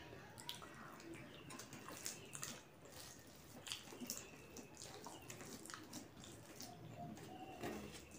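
Soft, wet, irregular clicks and squishes of eating by hand: fingers kneading soft, starchy rice on a steel plate, with chewing.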